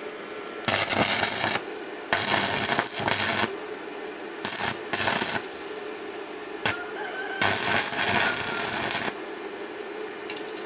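Stick-welding arc crackling in five bursts of about one to one and a half seconds each, with a single sharp snap between them: a Mächtz MWM-355 TB inverter welder set to about 150 amps, tack-welding rusty rebar with a 3.2 mm electrode.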